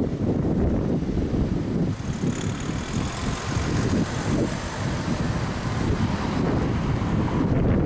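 Road traffic passing close by: cars, and a car towing a twin-axle caravan, driving over the crossing with tyre noise. A steady low rumble runs underneath.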